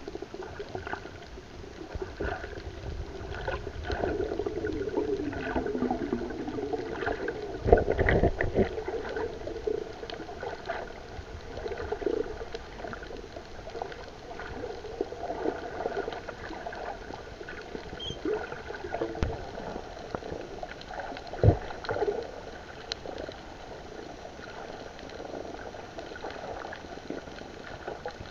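Water heard from under the surface: a steady muffled rush with gurgling. A couple of dull knocks come through, the loudest about eight seconds in and another about twenty-one seconds in.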